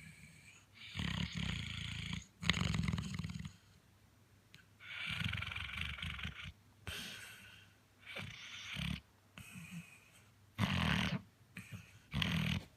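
Chocolate Labrador Retriever snoring in its sleep: a string of about eight rough, noisy breaths, each up to a second or so long, with short pauses between them.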